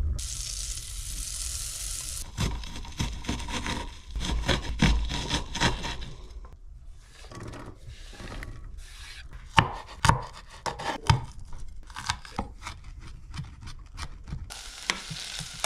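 Kitchen knife chopping onion on a bamboo cutting board: irregular sharp knocks, the loudest about a second apart, mixed with the scrape of chopped onion being pushed off the board into a pot. A hissing rush near the start and again at the very end.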